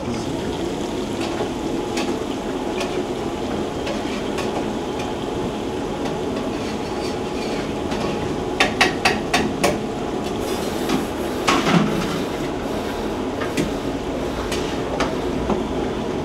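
Masala-coated ivy gourd strips deep-frying in a wok of hot oil with a steady sizzle. About halfway through comes a quick run of about five sharp clanks, and a few more knocks follow soon after.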